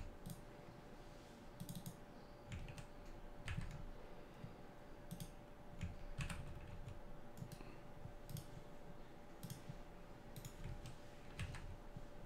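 Computer keyboard keys and mouse buttons clicking, scattered and irregular, as a token is copied and pasted into a request and the request is sent.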